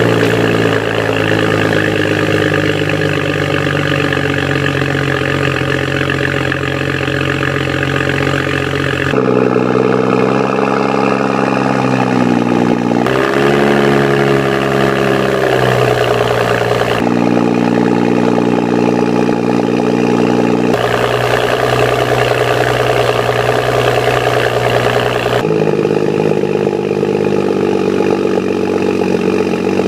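BMW 135i's N55 turbocharged 3.0-litre inline-six idling through a BMW Performance exhaust with the optional Y-pipe. The idle note steps up and down several times, with a brief rise and fall in pitch about halfway through.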